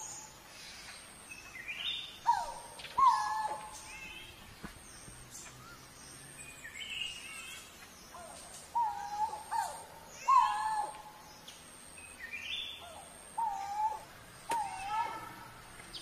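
Coral-billed ground cuckoo calling: short, loud moaning notes near the same pitch, repeated in groups of two or three a few seconds apart. Higher chirps from other birds sound between them.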